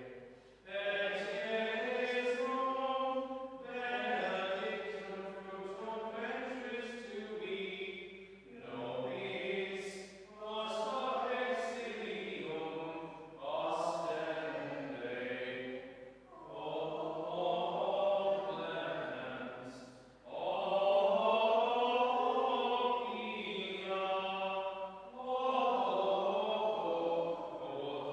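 Slow sung chant or hymn in sustained, gently rising and falling phrases a few seconds long, with short breaths between them.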